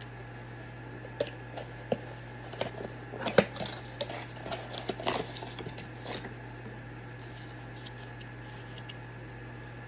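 Handling noises: a string of light clicks and rustles over about five seconds, one sharper click about three and a half seconds in, over a steady low hum.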